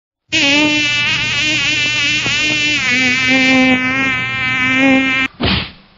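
A fly-like buzz whose pitch wavers up and down, lasting about five seconds and then cutting off suddenly, followed by one short sharp noise.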